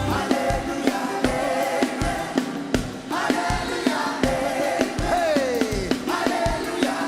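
Live gospel worship music: a band with a steady drum beat under choir and congregation singing, with a sung note sliding downward about five seconds in.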